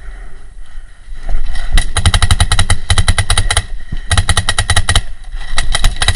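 Paintball marker fired in three rapid strings of shots with short pauses between them, starting about a second and a half in.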